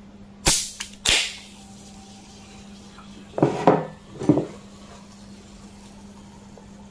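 Aluminium soft-drink can being opened: a click of the pull tab about half a second in, then a sharper crack with a short hiss of escaping gas about a second in. A few dull knocks follow a couple of seconds later.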